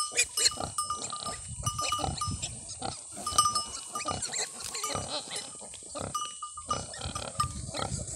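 A nursing sow and her suckling piglets grunting in short, irregular sounds.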